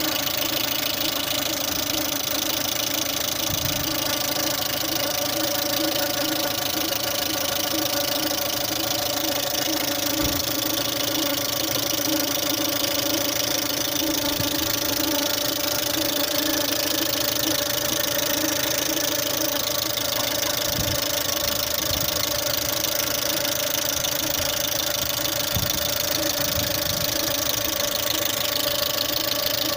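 Engine idling steadily with a knock from its hydraulic valve lifters, a sign that the lifters are not holding lash after a major engine overhaul.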